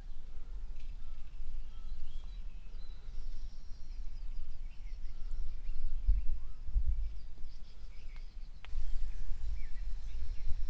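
Outdoor ambience: a low, buffeting rumble of wind on the microphone, with faint, scattered bird chirps and a single sharp click about eight and a half seconds in.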